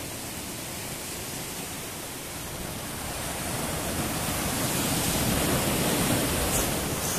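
Sea surf washing and breaking over rocks, a steady rush of noise that swells louder about halfway through.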